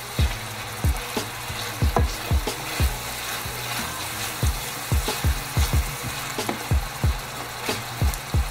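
Onion, scallion and bell peppers sizzling in olive oil in a metal frying pan. A wooden spatula stirs them, knocking and scraping against the pan about two or three times a second.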